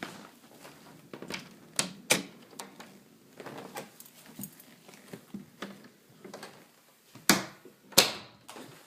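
Irregular light clicks and knocks in a small room, with two louder sharp knocks near the end.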